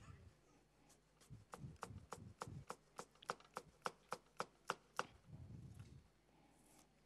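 Chef's knife slicing a Granny Smith apple into julienne on a cutting board: a quick, even run of about fifteen knife taps, three or four a second, starting about a second in and stopping about five seconds in, followed by a brief soft low thud.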